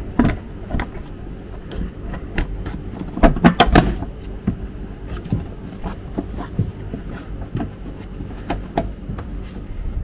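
Plastic windscreen-cowl shroud being pressed down by hand, its plastic lugs clicking and knocking as they seat under the metal, with the loudest cluster of knocks three to four seconds in. A steady low hum runs underneath.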